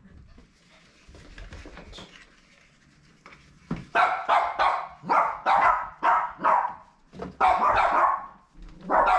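A dog barking: a run of short, sharp barks in quick succession that starts about four seconds in, after a few quieter seconds.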